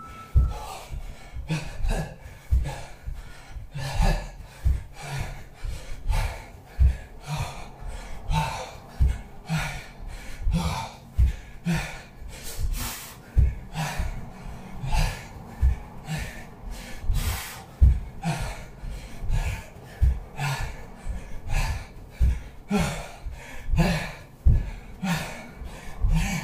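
A man breathing hard in short, sharp puffs while doing repeated burpees, with low thumps of his hands and feet landing on a carpeted floor.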